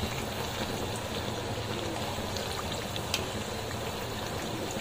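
Papdi (wheat-flour discs) deep-frying in very hot oil in a kadai: a steady sizzle with scattered small crackles, and one sharper pop about three seconds in.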